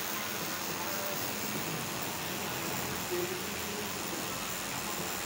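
Pen-style tattoo machine running steadily while its needle dots shading into skin.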